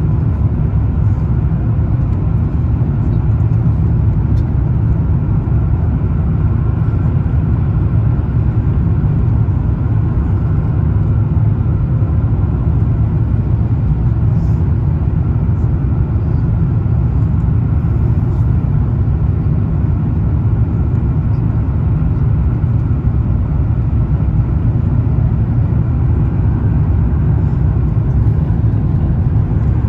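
Steady low cabin rumble inside an Airbus A350-1000 on approach, from its Rolls-Royce Trent XWB engines and the airflow over the airframe, even and unbroken throughout.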